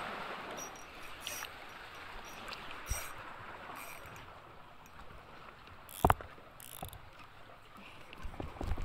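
Water lapping and washing around a small boat, with scattered clicks and knocks from handling a fishing rod and the camera. The loudest is a single sharp knock about six seconds in, with a few more knocks near the end.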